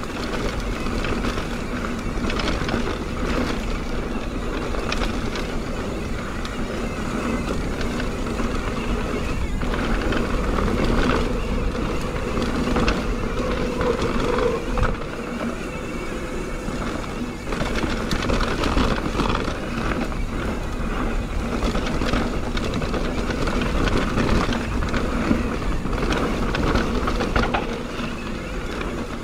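Mountain bike ridden fast down a dirt trail: steady rushing wind noise and tyre noise on dirt, with frequent knocks and rattles from the bike over bumps and rocks.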